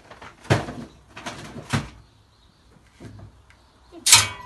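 Metal feed chest being handled: a few short knocks and rustles as hands rummage inside it, then about four seconds in a loud clang with a ringing tail as its metal lid is dropped shut.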